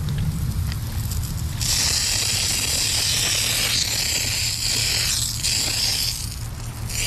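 In-ground irrigation sprinkler head spraying water, fed from a garden hose and running at low pressure. The spray hiss gets louder about a second and a half in and eases off near the end.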